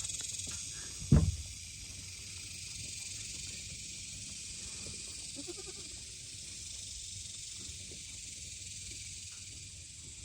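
Steady high-pitched drone of insects, with a single thump about a second in.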